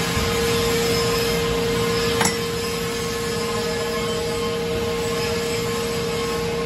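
Horizontal metal-cutting band saw running steadily with flood coolant while cutting a metal tube: an even machine noise carrying a steady high tone. There is a single sharp click a little over two seconds in.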